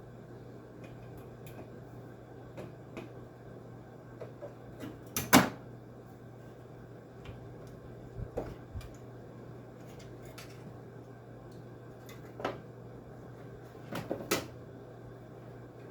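Scattered clicks and knocks of hand tools and parts being handled while a window air conditioner is worked on, the loudest knock about five seconds in and a few more later, over a steady low hum.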